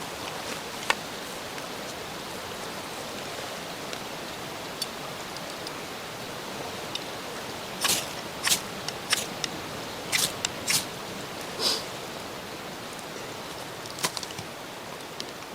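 Wood campfire burning with a steady hiss and scattered sharp crackles. A run of louder clicks and knocks comes about halfway through.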